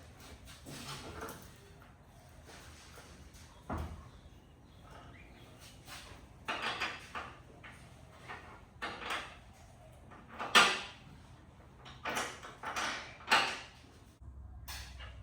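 Scattered clunks and knocks of metal parts and hand tools being handled while an engine is fitted onto its mounts. They come irregularly, about a dozen in all, with the sharpest knock about ten and a half seconds in.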